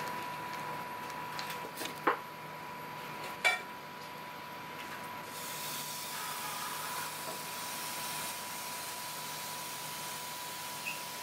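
Steady background hiss with a thin, constant high tone running under it, broken by two sharp clicks about a second and a half apart, the first about two seconds in.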